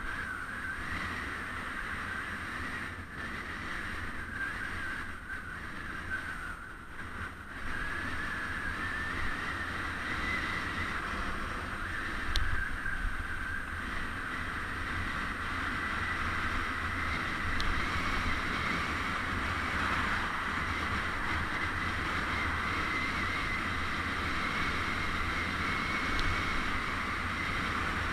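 Wind rushing over the microphone of a camera mounted on a moving bicycle, with a low rumble of road noise underneath. The noise gets somewhat louder about a third of the way in and stays steady after that.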